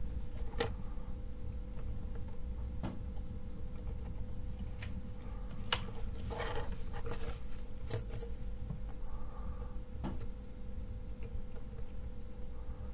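Small metallic clicks and ticks from a circuit board and its wire component leads being handled during soldering, with a short rustle about six seconds in and the sharpest pair of ticks about eight seconds in. A faint steady hum runs underneath.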